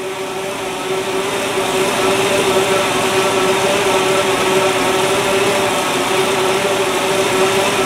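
Freshly rebuilt 350 Chevrolet small-block V8 running steadily on its first start-up after the rebuild, with an even, constant hum that grows a little louder over the first two seconds; it is running well.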